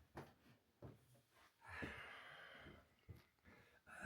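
Near silence: faint room tone with a few soft clicks, and a soft hiss lasting about a second near the middle.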